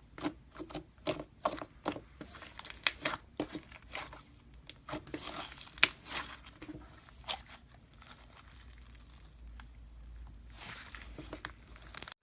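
Slime being squeezed and poked by hand: a quick run of short sticky pops and crackles, thinning out past the middle, with another cluster of pops near the end.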